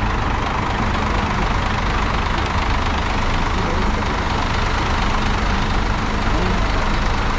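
Bus engine idling with a steady low drone, heard from inside the bus, with voices in the background.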